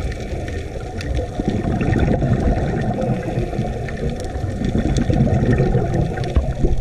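Muffled underwater noise picked up by a GoPro in its waterproof housing: a steady low rumbling wash of water with scattered faint clicks.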